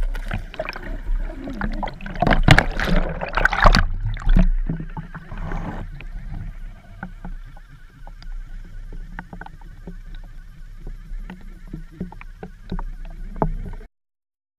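Water churning and sloshing heard through an underwater camera as a pike seizes a lure, loud with sharp surges over the first four seconds, then settling to a quieter wash with scattered sharp clicks over a low hum. The sound cuts off abruptly near the end.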